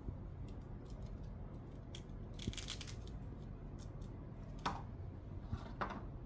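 Cookies cracking and crunching in a meat grinder: scattered crisp crackles, with a dense cluster about two and a half seconds in, over a low steady hum.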